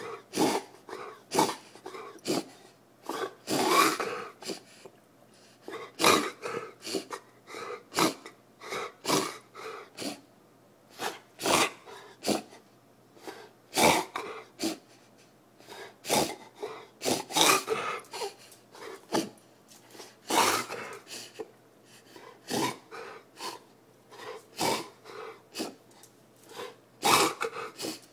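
Dog coughing over and over in fits of short coughs with brief pauses between fits, the cough of kennel cough.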